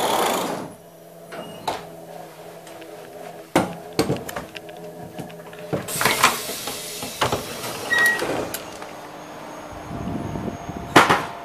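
A short rush of a sliding door on a Swiss InterRegio carriage at the start, then scattered clicks and knocks over the steady hum of the standing train, with another brief rush near the end.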